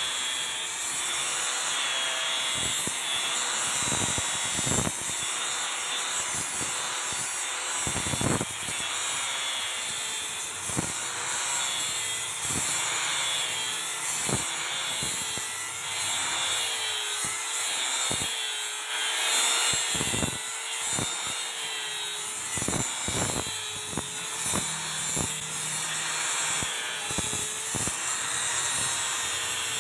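Electric edge-profiling machine with an abrasive wheel grinding along the edge of a granite tile: a steady gritty hiss over the motor's whine, which wavers in pitch as the load changes, with scattered knocks.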